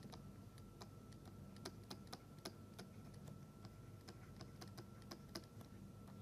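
Faint, irregular light clicking and tapping, several taps a second at uneven spacing, over a faint steady hum.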